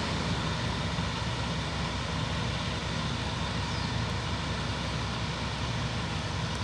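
Diesel locomotive engine running steadily in a depot yard, a continuous low rumble.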